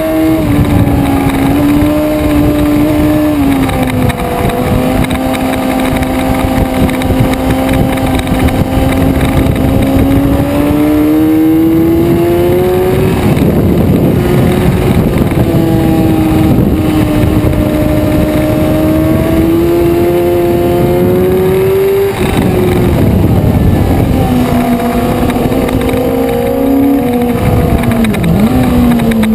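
Suzuki sport motorcycle engine at high revs, heard from on board at speed with wind rush on the microphone. The pitch climbs slowly through long pulls and drops sharply a few times, about two thirds of the way in and again near the end.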